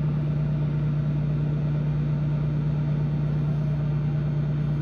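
Microwave oven running mid-cycle: a steady low hum with fan noise, unchanging throughout.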